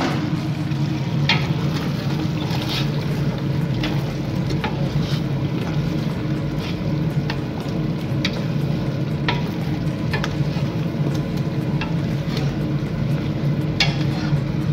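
Chicken and potato pieces frying in a stainless steel pot: light sizzling with scattered sharp pops and clicks, about one a second, over a steady low hum.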